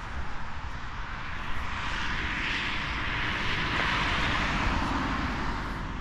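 A car passing on a wet road: the tyre hiss swells over a couple of seconds, peaks about two thirds of the way in, then fades, over a steady low rumble.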